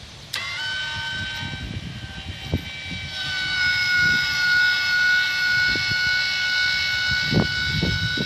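Electric linear actuator motor running and extending to tip a Brinly dump cart's bed: a steady geared whine that starts abruptly just after the beginning and gets louder about three seconds in. A few low knocks come from the mechanism.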